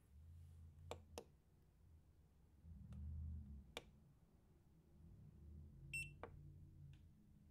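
A portable power station gives one short electronic beep about six seconds in. A few sharp clicks come before and just after it, over low handling noise.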